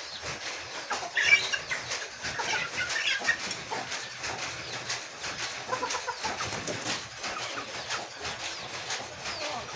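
Aseel chickens clucking and calling, loudest in a short flurry of calls about a second in, over a dense run of small sharp clicks and scuffs.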